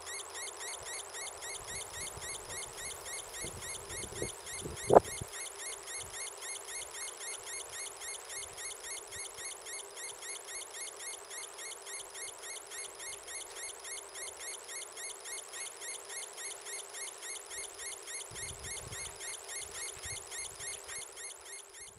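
Solar-powered synth circuit of oscillators modulating each other, playing through a small speaker: a rapid, evenly repeating high-pitched electronic chirp, about four chirps a second, over a steady lower hum. A single sharp knock about five seconds in is the loudest moment.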